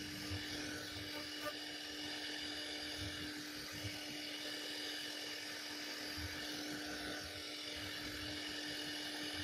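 CNC router spindle running steadily at high speed as its carving bit cuts relief patterns into a wooden panel: an even high whine over a steady hum.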